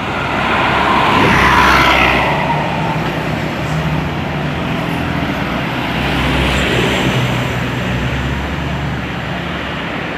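Road traffic: a motor vehicle's engine and tyre noise, swelling as it passes about one to three seconds in, then a steady engine rumble.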